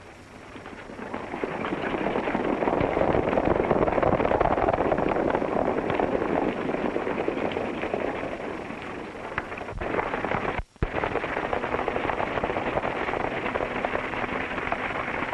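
Many horses galloping, a dense clatter of hoofbeats that swells about a second in and keeps up, with a brief break near two-thirds through.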